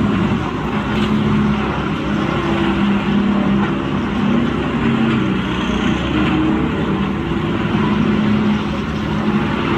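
Large industrial wood grinder running steadily under load: the engine's drone mixed with the grinding noise of logs being torn into mulch.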